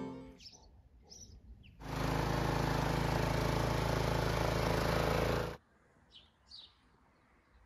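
Birds chirping faintly. About two seconds in, a mini excavator's small engine starts running loud and steady, then cuts off abruptly about four seconds later, leaving the bird chirps again.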